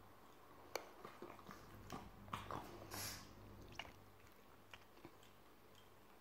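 Faint, scattered clicks and taps of a Boston terrier's teeth and nose against a plastic fidget spinner as she mouths at it, with a short breathy rush about three seconds in.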